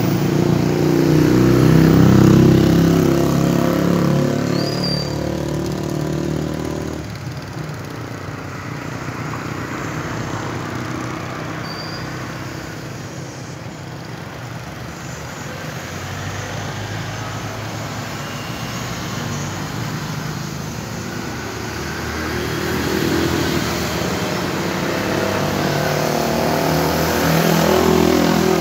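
A motor vehicle's engine running close by, loud for the first several seconds, fading, then growing louder again over the last several seconds.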